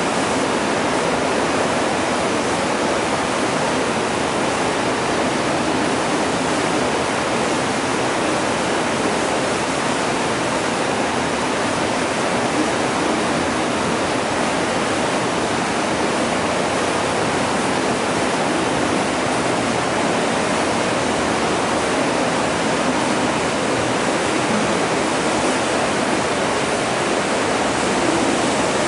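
Steady rush of turbulent water in the filter boxes of a water treatment plant's filtration unit: an even, unbroken hiss with no changes.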